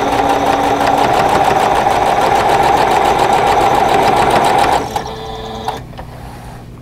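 Singer electric sewing machine running steadily as it stitches a seam, stopping abruptly about five seconds in. A short, quieter whir follows before it falls silent.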